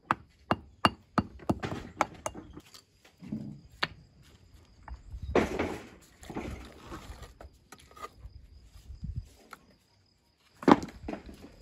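Mason's hammer striking stone as building stones are shaped by hand. A quick run of sharp knocks comes in the first couple of seconds, then scattered strikes and a longer rough scraping noise midway. One loud knock comes near the end.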